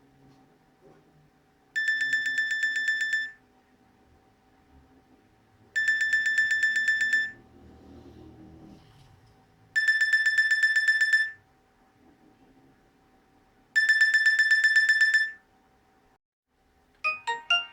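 Nokia 6131 mobile phone ringtone: a rapidly pulsed, single-pitch electronic trill, about a second and a half long, repeated four times at 4-second intervals. Near the end, a few quick notes at changing pitches start the next ringtone.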